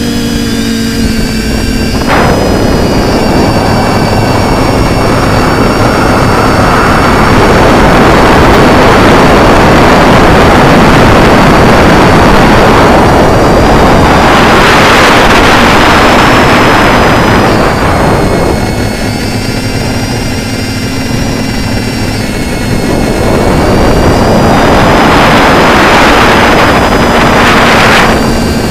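Brushless motors and propellers of a TBS Discovery quadcopter whining steadily in flight, picked up by the camera mounted on the craft, under a loud rush of wind and prop wash that swells twice.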